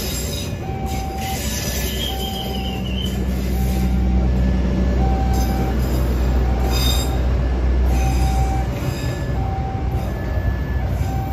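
KAI passenger train cars rolling past on the rails, with a deep diesel drone swelling from about three and a half seconds to near nine seconds as the louvered generator car goes by, and a brief high wheel squeal about two seconds in. A level-crossing warning bell chimes about once a second throughout.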